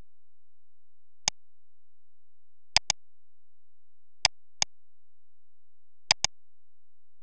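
Sharp clicks of a computer mouse button picked up by the recording microphone: a single click, then three pairs of clicks about a second and a half apart.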